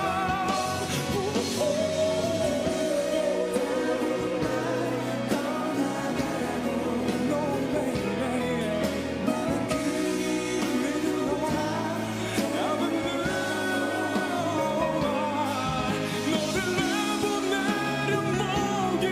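Pop ballad played live: a male singer's voice with wavering held notes over band accompaniment.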